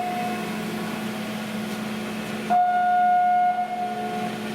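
Berco RTM260A crankshaft grinder running under power with a steady hum. A high steady whine fades out just after the start, then comes on suddenly about two and a half seconds in and lasts a second and a half or so.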